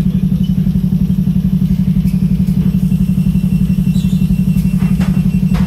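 A London single-deck bus's rear-mounted diesel engine running loudly and steadily at idle, heard from the back seats as a deep throb with a fast, even pulse, motorbike-like.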